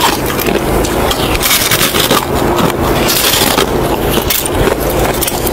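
Packed snow crunching as it is bitten and chewed, in a string of crisp crunches over a steady low hum.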